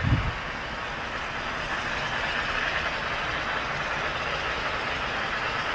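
Steady rushing of a mountain river, a little stronger about two seconds in, with a brief low thump right at the start.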